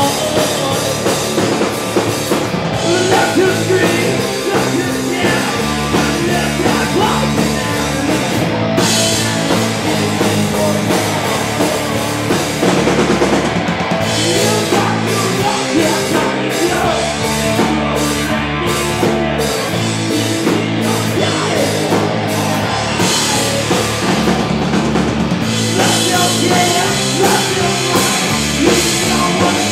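Southern rock band playing live: electric guitars and drum kit, with a male singer. About halfway through there is a stretch of stop-start hits.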